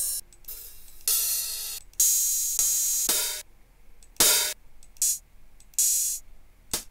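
Open hi-hat samples in a Battery drum sampler, auditioned one after another: about eight single hits of differing length and brightness, each a cymbal hiss that fades out.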